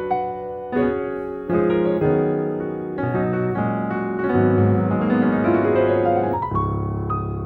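Piano chords played on a keyboard, each chord held and a new one struck every second or so, with deep bass notes underneath from about three seconds in.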